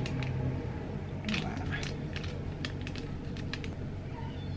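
Metal spoon tapping and scraping against a stainless steel mixing bowl of flour as baking powder is added and stirred in: a scatter of light clicks over a steady low hum.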